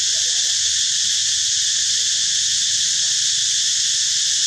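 A steady chorus of insects: an even, high drone that goes on without a break.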